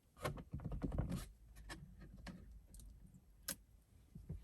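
Small plastic clicks and scratchy crackling from the dashcam being handled and its protective film peeled off: a busy run of ticks in the first second, scattered light clicks after, and one sharp click about three and a half seconds in.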